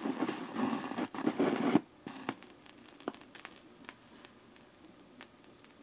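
Turntable stylus being set down by hand on a spinning 45 rpm vinyl record: rough scratching and handling noise for about two seconds, ending in a sharp knock as the needle drops. Then faint crackle and scattered clicks from the lead-in groove before the music starts.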